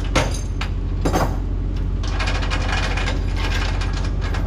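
Excavator's diesel engine running steadily under load, with two sharp knocks about a second apart near the start, then scraping and rattling as the chained truck is lifted.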